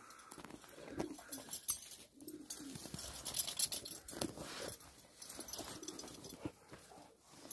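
Rottweilers making short, low whines and grunts while jumping about close by, several times, with rustling movement noise through the snow.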